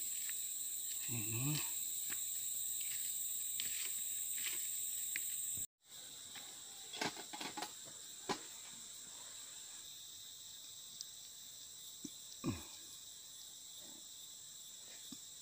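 Steady high-pitched drone of insects, with a few faint clicks and rustles from handling. The sound drops out for an instant about six seconds in and comes back quieter.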